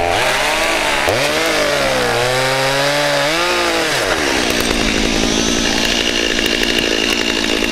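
Two-stroke chainsaw cutting through brush saplings, its engine pitch dipping under load and climbing again through the first half, then running more steadily.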